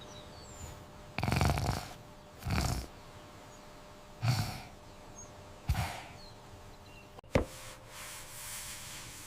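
A dog's short breathy huffs and snorts, about five of them a second or so apart, with a sharp click about seven seconds in.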